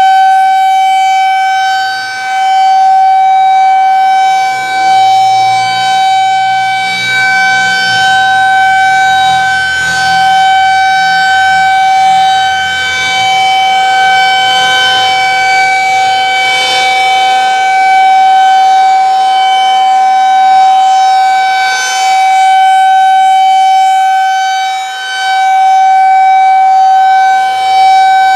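Federal Signal 2001 SRNB rotating outdoor warning siren sounding its monthly test as a steady tone that holds one pitch. Its loudness dips briefly now and then as the rotating horn turns away.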